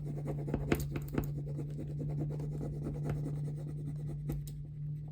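A rub-on transfer being rubbed onto a paper journal page: a quick, continuous scratchy rubbing on paper, over a steady low hum.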